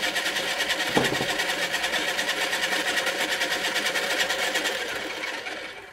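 Electric pottery wheel motor running at speed with a fast, even whirring rattle as it spins a paint-covered vinyl record. There is a single sharp knock about a second in, and the motor sound fades away near the end as the wheel is stopped.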